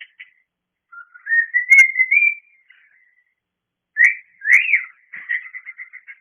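Cockatiel whistling and chirping for attention: a few quick chirps, then a rising whistle with a sharp click in it about a second in. Two loud whistled notes come around four seconds in, then a fast run of chirps.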